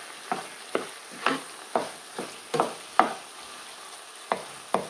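Wooden spatula stirring a thick potato-and-aubergine mash in a deep pan, knocking and scraping against the pan about twice a second, with a soft sizzle from the low flame underneath.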